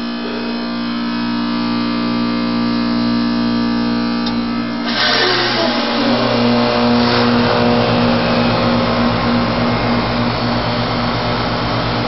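2003 Bryant 5-ton heat pump outdoor unit in defrost mode, its compressor humming steadily. About five seconds in, a sudden loud rush of refrigerant begins and the hum's pitch shifts as the reversing valve switches back, ending a quick defrost cycle. The owner takes the defrost, run with hardly any ice on the coil, as a sign that the unit has timed rather than demand defrost.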